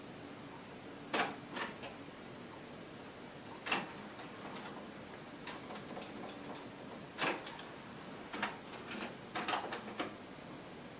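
Pioneer CT-M6R six-cassette changer's transport mechanism clicking and clunking as it switches modes, with faint tape hiss between. The sharpest clicks come about a second in, near four seconds and about seven seconds in, followed by a quick cluster of smaller clicks.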